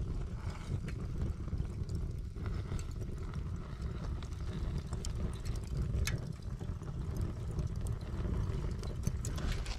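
Charcoal fire blazing in a barbecue grill, with scattered sharp crackles over a steady low rumble.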